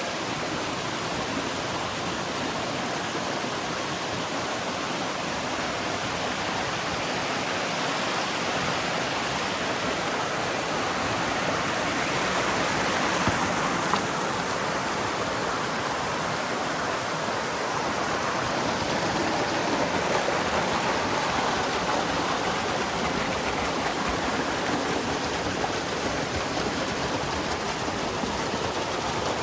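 A stream of running water rushing steadily, swelling a little around the middle.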